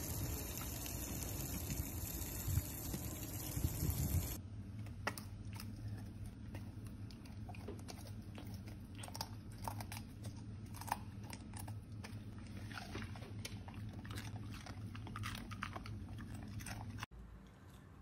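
A dachshund crunching and chewing a piece of green vegetable taken from a hand, in many short, sharp crunches. For the first few seconds a loud, even rushing noise comes first.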